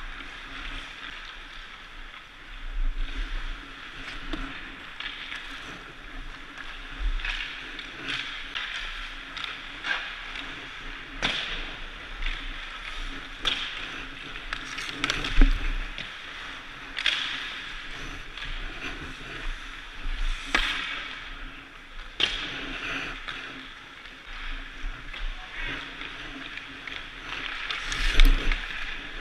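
Ice hockey skates scraping the ice with sticks and pucks clacking on a busy rink, over a steady hum, with sharp knocks scattered throughout. The loudest knocks come about halfway through and near the end, the last as a skater shoots from close in on the goalie.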